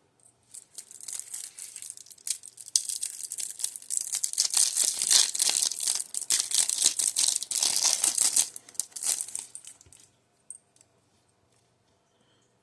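Plastic trading-card packaging crinkling and tearing as it is opened by hand, a dense rustle that stops about ten seconds in.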